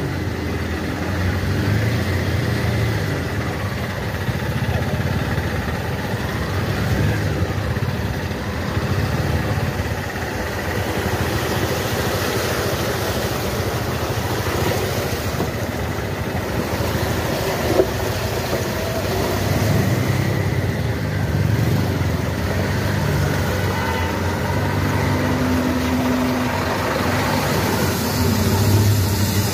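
Motor vehicle engine running steadily as traffic moves slowly through a flooded street.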